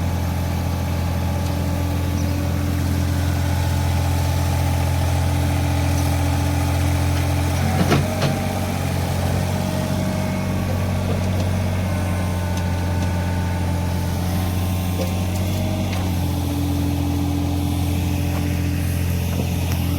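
Caterpillar 303 mini excavator's diesel engine running steadily, with a brief metallic clank about eight seconds in.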